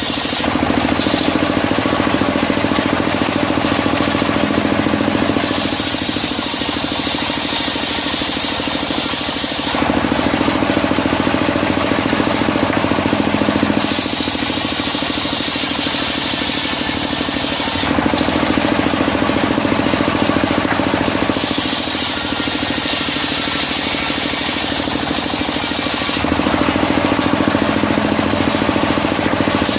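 Circular sawmill running as it saws medang kuning wood, a steady loud machine noise whose tone shifts back and forth about every four seconds.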